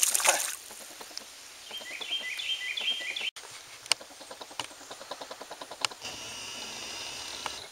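Pond-side outdoor ambience. A brief loud noise at the very start, then a bird sings a short repeated chirping phrase. About three seconds in the sound changes to a run of quickening clicks and then a steady high buzz.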